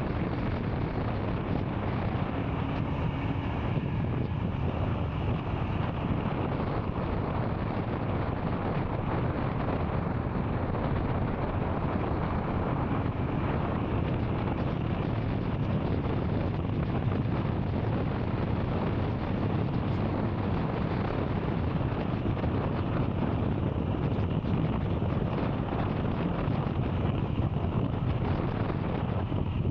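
Royal Enfield Scram 440's single-cylinder engine running steadily while riding, heard under heavy wind rush on the microphone.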